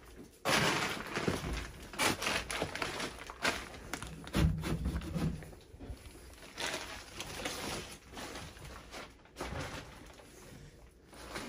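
Irregular rustling, scraping and knocking of someone searching through kitchen drawers, with a heavier thump about four and a half seconds in.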